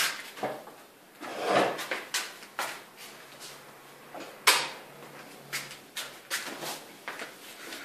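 Scattered clicks, knocks and rustles of someone moving about and handling things, with one sharp click, the loudest sound, about halfway through as a room light switch is flipped on.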